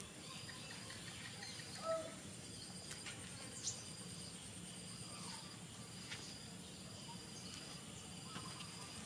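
Outdoor insect chorus: a steady high trill, with a short high chirp repeated about once a second and a few faint bird-like chirps. A brief louder call sounds about two seconds in.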